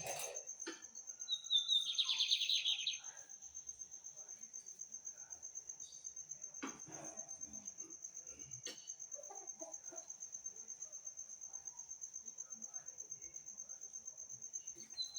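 A seedeater sings one short burst of bright, high song about a second and a half in, over a steady high-pitched whine. Two sharp clicks come later.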